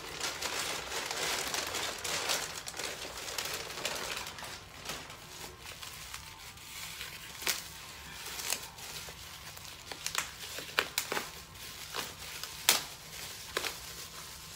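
Packing material crinkling and rustling as an item is unwrapped by hand: dense rustling for the first few seconds, then scattered sharp crackles and clicks.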